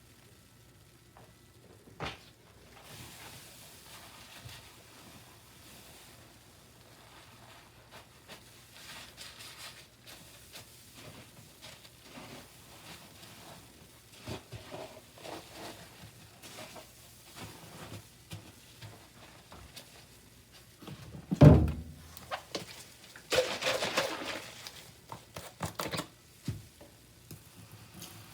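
Quiet handling sounds from a sponge-and-ice rinsing setup. There is one heavy thunk about three-quarters of the way in, then a few seconds of crackling.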